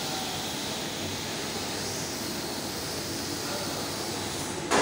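Steady drone and hiss of workshop machinery running. A short, louder knock near the end.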